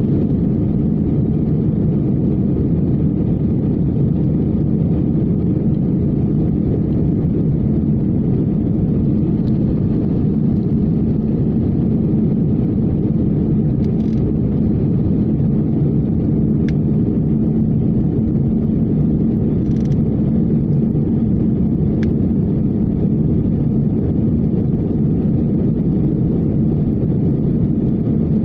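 Steady roar of an airliner's jet engines and airflow heard inside the passenger cabin, with a low steady hum under it and a few faint clicks.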